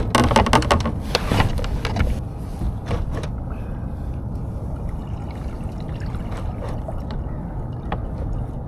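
Water splashing and trickling around a kayak moving up a creek. A cluster of splashes and clatter comes in the first two seconds, then a steady low rumble with light water sounds.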